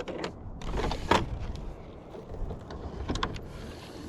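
Electric trolling motor running on a small boat, a steady low hum with a few knocks and clicks on the boat.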